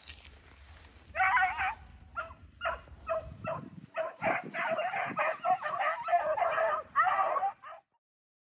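A pack of beagles baying while running a rabbit's track: short, repeated yelping calls from several hounds that come thicker and overlap as they go, then cut off suddenly near the end.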